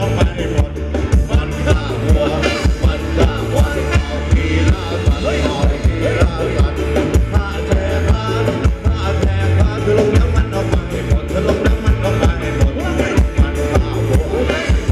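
Live Thai ramwong dance band playing, with a singer over a steady, driving beat.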